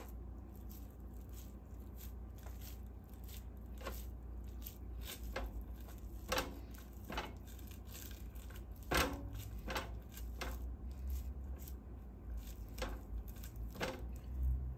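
Hands patting and pressing chopped dried beef onto a soft cream cheese ball: irregular soft sticky clicks and pats, a few sharper ones around the middle, over a low steady hum.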